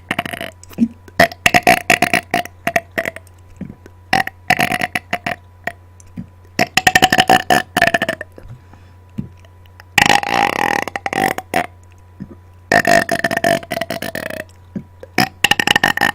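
Close-miked burps on command, one after another: a string of about six loud, drawn-out burps, each one to two seconds long and a second or two apart.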